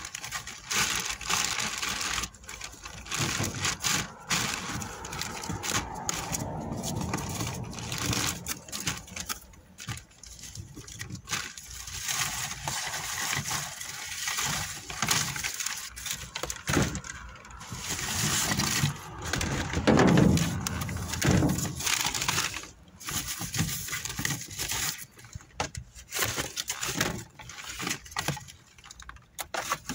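Plastic bags and plastic wrap crinkling and cardboard rustling as discarded vegetables are rummaged through by hand, with scattered knocks as a plastic crate and produce are moved.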